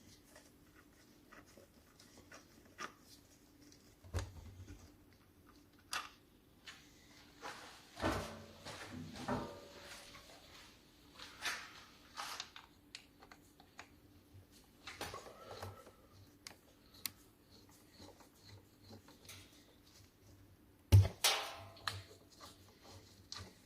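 Irregular knocks, clicks and clatter of objects being handled, in scattered clusters, with the sharpest knock about 21 seconds in, over a faint steady hum.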